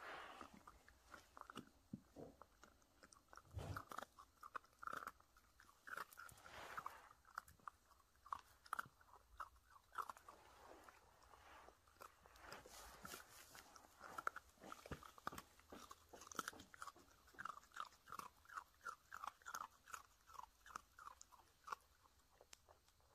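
Miniature dachshund puppy chewing and crunching a cream-filled sandwich cookie: faint, irregular crunches, settling into a quick run of several bites a second near the end.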